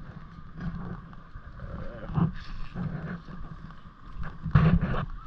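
Indistinct voices over wind noise on the microphone.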